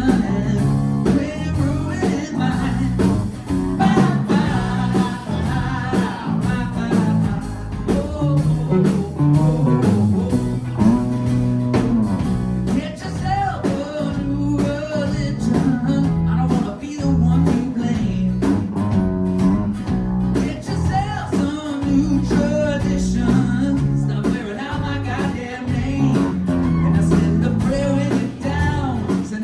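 Live pop-rock band performing a song: a man singing over electric guitar and band accompaniment.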